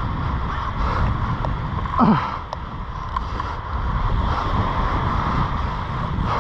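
Wind buffeting the microphone, with small waves washing on the shore. About two seconds in comes a brief grunt of effort that falls in pitch, from an angler straining against a hooked shark on a surf rod.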